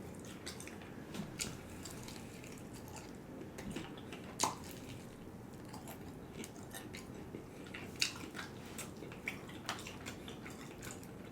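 Close-miked chewing of fried chicken: scattered soft, wet mouth clicks and smacks, with a sharper click about four and a half seconds in and another about eight seconds in.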